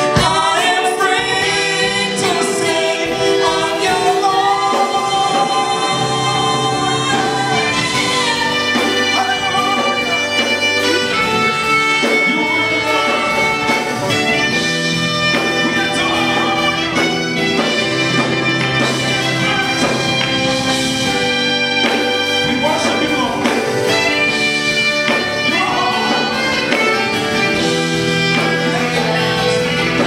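Gospel choir singing, with lead vocalists singing into microphones.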